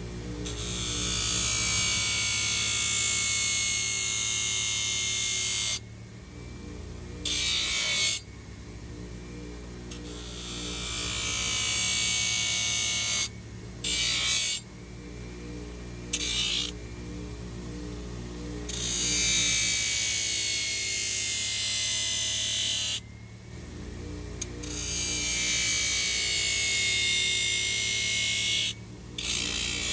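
A small power tool running in repeated bursts of a few seconds each, starting and stopping, with a slight whine in its sound; background music underneath.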